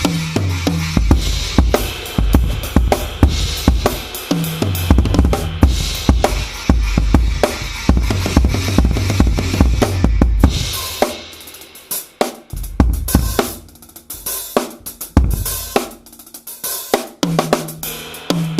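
Drum kit played in a groove with crashes on a Paiste Color Sound 900 18-inch China cymbal. About two-thirds of the way through, the playing thins to sparser, quieter strokes, and the full groove returns near the end.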